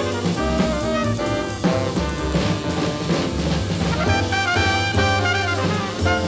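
Jazz combo playing: horns state a melody together over bass, drums and cymbals.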